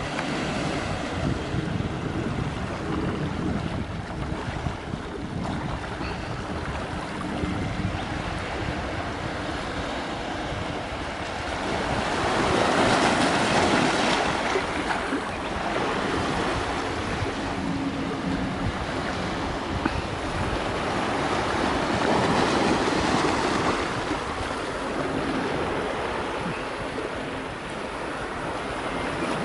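Sea waves washing against a breakwater, swelling louder twice, with wind rumbling on the microphone.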